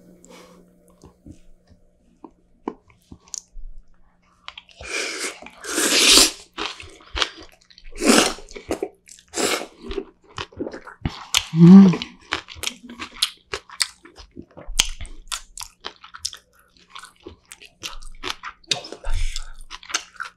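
Close-miked chewing of a spoonful of cold noodles with young radish (yeolmu) greens: wet crunching and mouth clicks in irregular bursts, starting about five seconds in. A brief low voiced sound about two-thirds of the way through is the loudest moment.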